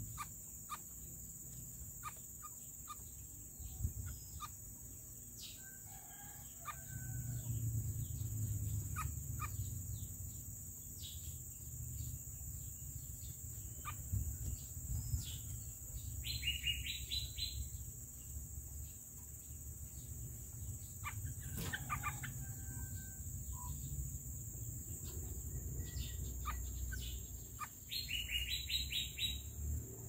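Outdoor birdsong: two short bursts of rapid high chirping notes, one about halfway through and one near the end, with fainter fowl-like calls in the background. Scattered soft ticks, a steady high-pitched drone and a low rumble run underneath.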